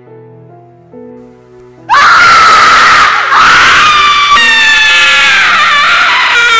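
Quiet, slow music with single decaying notes, cut through about two seconds in by a sudden, very loud, high-pitched scream that holds on, its pitch wavering and sagging slightly: a jump-scare scream.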